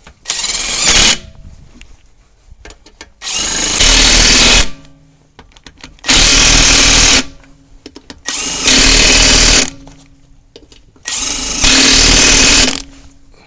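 Power impact wrench running the lug nuts on a spare wheel: five loud bursts of one to one and a half seconds each, a couple of seconds apart, one per nut.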